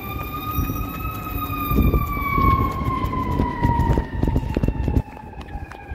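Fire apparatus siren in one long wail, rising a little and then falling slowly. Rumbling wind and handling noise on the microphone lies beneath it and drops away about five seconds in.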